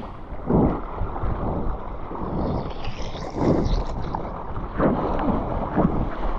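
Water splashing and rushing past a surfboard as a surfer paddles into a wave and then rides it, with a surge of splash about every second and wind noise on the camera's microphone.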